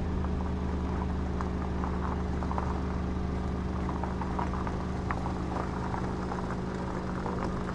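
A car running at a steady engine hum with road noise, and a few faint small clicks and rattles.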